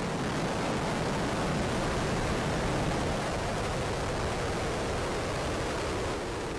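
Ares I-X solid rocket motor roaring steadily during liftoff and ascent, a dense rumbling rush with no tone in it, easing slightly near the end.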